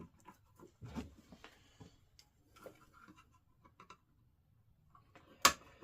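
Light scattered clicks and scrapes of small parts being handled, with one sharp click about five and a half seconds in.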